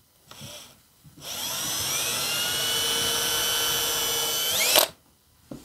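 Cordless drill boring a pilot hole in an MDF board. A brief spin about half a second in, then a steady motor whine for about three and a half seconds that rises sharply in pitch just before it stops. A single click near the end.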